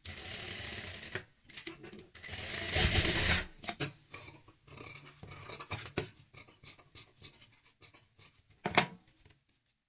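Industrial sewing machine stitching in two short runs, followed by large tailoring scissors snipping thread and fabric amid cloth being handled, with one sharper click near the end.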